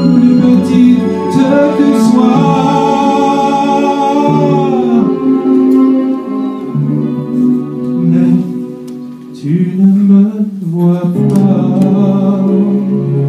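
A man singing a song into a microphone over instrumental accompaniment, holding long notes.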